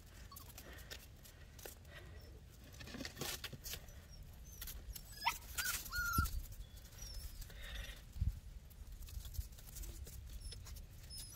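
Miniature pinscher puppies playing in crusty snow: a few short, high whimpers and yips about five to six seconds in, over scattered light crunching and scuffling.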